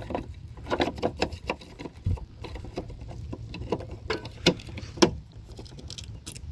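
Irregular small plastic clicks and taps from a light's wiring harness and its tab being worked back into the rear light housing, the loudest click about five seconds in.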